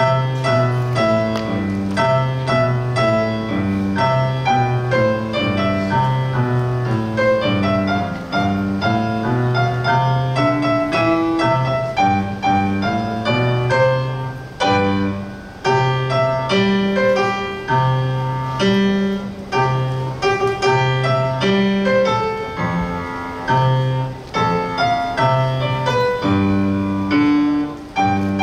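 Piano playing a piece, with a melody over repeated bass notes and chords.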